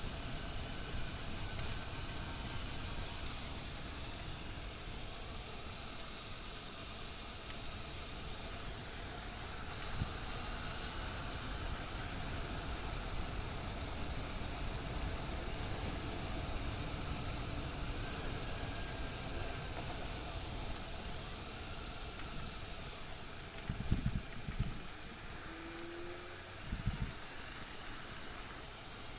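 Motorcycle engine running steadily under a hiss of wind and road noise, with a couple of short low thumps near the end.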